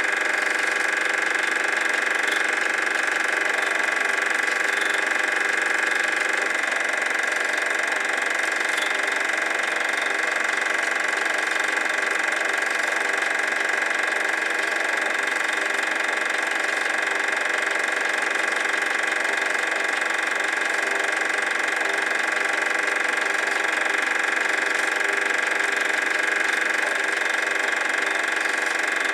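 Super 8 film projector running: a steady mechanical whir and hum of its motor and film drive that does not change.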